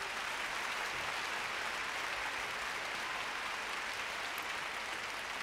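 Large concert audience applauding steadily, greeting a performer as he is introduced.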